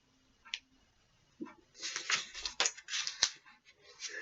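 Paper rustling and crinkling with a few sharp clicks as a small handwritten note is handled, after a quiet first second or so.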